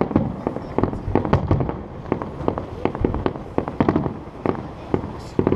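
Fireworks display: shells bursting in quick, irregular succession, several reports a second, some with a rumbling echo after them.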